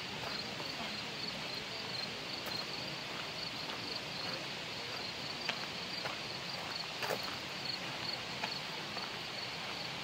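Steady rush of water in a gorge, with an insect chirping in a rapid, evenly repeating high-pitched pulse over it. A few sharp clicks stand out about five and a half, seven and eight and a half seconds in.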